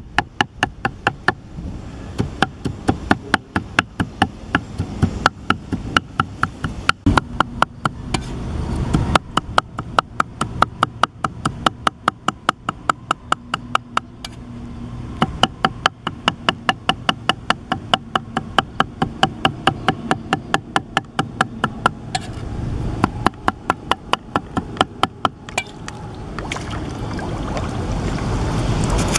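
Cleaver mincing food on a round wooden chopping block: rapid, even chops at about four a second, with a few short pauses. The chopping stops a few seconds before the end, and a low rumble rises.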